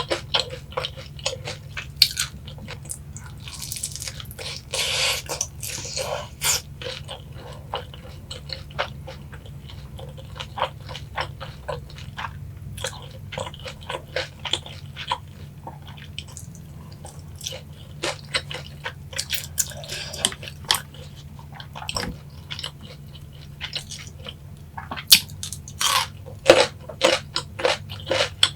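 Close-miked chewing and crunching of boneless fried chicken coated in sweet-spicy yangnyeom sauce: a steady run of irregular crisp bites and mouth clicks, busiest a few seconds in and again about two-thirds of the way through.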